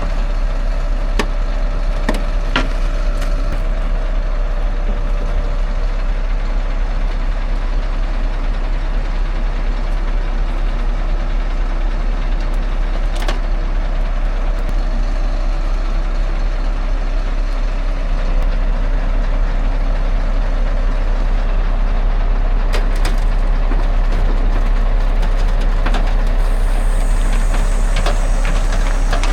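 Heavy diesel machinery running steadily, with a few sharp metallic knocks and clanks and a hiss of air near the end.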